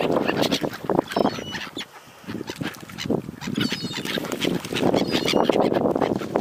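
Waterbirds calling, with duck-like calls and short high calls, over wind noise on the microphone. The calling lulls briefly about two seconds in.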